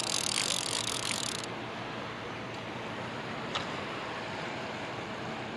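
A fishing reel's drag buzzing for about a second and a half as a big blue catfish pulls line off the reel against the loosened drag, then steady background noise.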